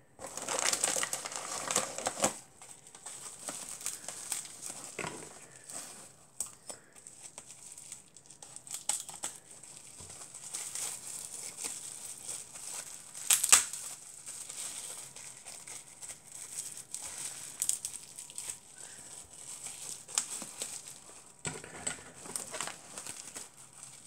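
Bubble-wrap packaging crinkling and rustling as a wrapped die-cast toy car is handled and unwrapped, loudest in the first two seconds, with a sharp crack about halfway through.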